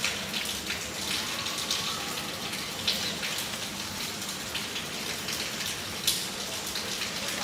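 Monsoon rain falling steadily, with separate drops striking close by now and then, two of them louder about three and six seconds in.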